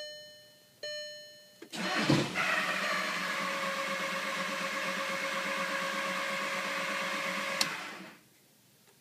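Volkswagen Jetta TDI diesel cranked without starting. After two chimes about a second apart, the starter engages at about two seconds in with a brief catch that lasts about half a second. It then spins the engine over evenly for about six seconds without it firing, and stops. This is a crank-no-start even though fuel is reaching the injectors.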